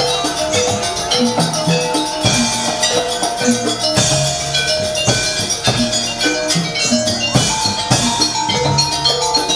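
Live Javanese jaranan gamelan music: hand drums keep a driving rhythm under tuned metal gongs playing short repeating notes.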